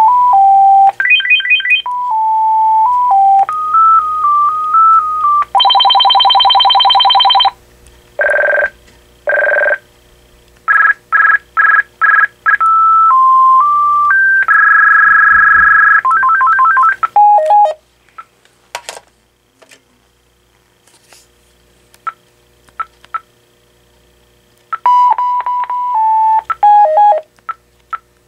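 Vtech 6773 cordless phone handset playing its built-in electronic ringtones one after another as the outside-call ringer setting is stepped through: short melodies of stepping single beeps, a buzzy trill and warbling chirps. Partway through the ringing stops for several seconds with only faint keypad clicks, then another beep melody starts near the end.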